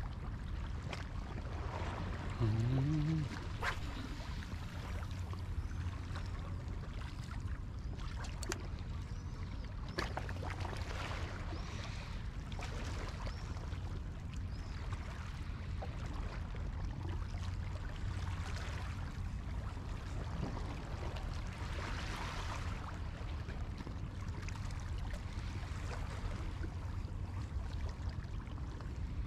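Water splashing and lapping at the shore, over a steady low rumble, with a few sharp clicks and a brief pitched, rising sound about two and a half seconds in.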